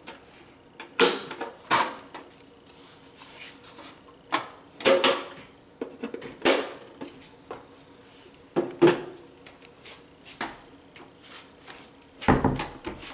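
Irregular sharp knocks and clatters of objects being taken out and handled at a closet shelf, then a louder thud near the end as the closet door is pushed shut. A faint steady hum runs underneath.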